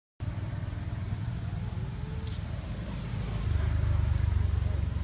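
A low, steady rumble that grows louder about three and a half seconds in, with a faint chirp and a single click partway through.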